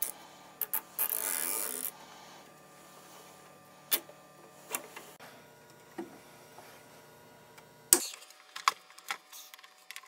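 A nylon cable tie is pulled tight through its ratchet with a rasping zip lasting about a second, followed by a few sharp clicks as side cutters snip off the tail.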